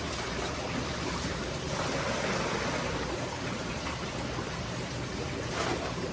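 Steady rush of water in the aquarium setup, swelling a little about two seconds in.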